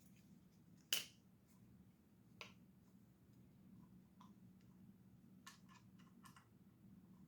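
Near silence with a few sharp, small clicks of Torx drivers on a folding knife's pivot screws as the knife is taken apart. One louder click comes about a second in, and a quick run of light clicks follows a few seconds later, over a faint low hum.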